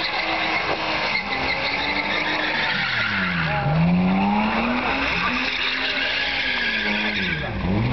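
BMW E30 doing donuts, its rear tyres spinning and squealing continuously under high engine revs. The revs drop sharply about halfway through and again near the end, then climb back each time.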